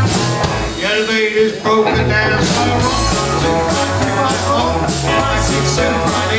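Live rock-and-roll band of electric guitars, piano, electric bass and drums playing with a steady beat. About a second in, the bass and drums stop for roughly a second, then the full band comes back in.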